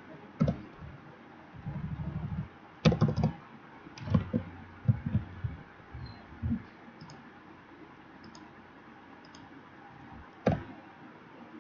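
Computer keyboard typing: scattered key strokes with a few sharper clacks and a quick run of keystrokes about two seconds in, then a pause and one more strike near the end.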